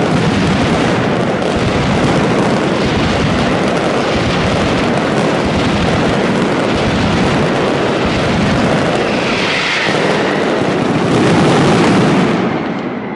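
Mascletà firecrackers exploding in a dense, unbroken barrage, the bangs so close together that they run into one continuous din. It swells louder about a second before the end, then eases off.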